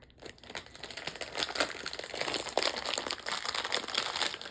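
Plastic blind-box packaging crinkling as it is handled and opened, a dense irregular crackle that builds up after the first half second.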